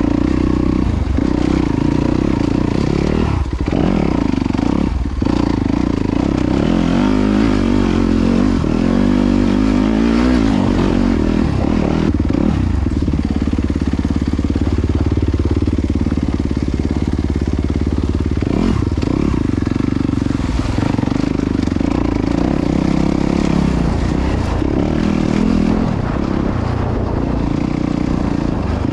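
Yamaha YZ250FX's single-cylinder four-stroke engine running as the dirt bike is ridden over a slick trail, the revs rising and falling with the throttle. A few short knocks from the bike come in the first few seconds and again later.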